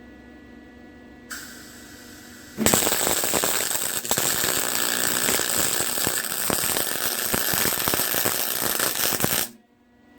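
Welding arc crackling steadily as a bead is run on the steel axle truss, starting about two and a half seconds in after a short hiss and cutting off suddenly near the end.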